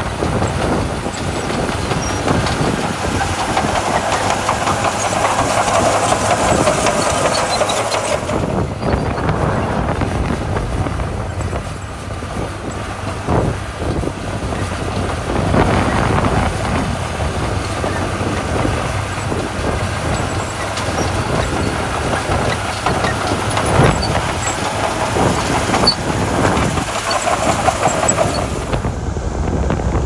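Komatsu crawler bulldozer's diesel engine running under load as its blade pushes gravel, with its steel tracks clanking and stones crunching.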